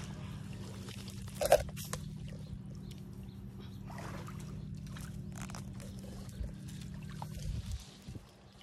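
Water sloshing and splashing around people wading to pull a fishing net, over a steady low motor hum that stops near the end. A sharp splash or knock stands out about one and a half seconds in.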